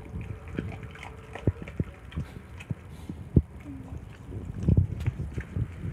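A dog eating raw food from a stainless steel bowl: irregular chewing and gulping, with short knocks as food and muzzle hit the metal bowl, busiest near the end.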